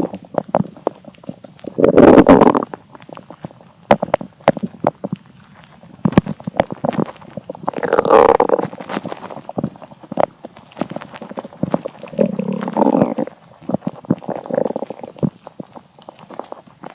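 An empty, hungry human stomach rumbling and gurgling. Loud drawn-out growls come about 2 s, 8 s and 12 to 13 s in, with a smaller one near 14.5 s and many short pops and gurgles between them.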